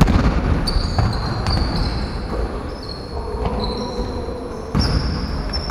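Basketball game sounds on a wooden court: sneakers squeaking repeatedly on the parquet floor and the ball thudding a few times, with the hall's echo behind them.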